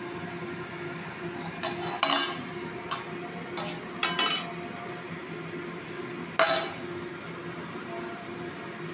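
Metal spoon clinking and scraping against a metal pan as cooked filling is scooped out. It comes as a string of short clinks, the loudest about two seconds in and again about six and a half seconds in, over a steady low hum.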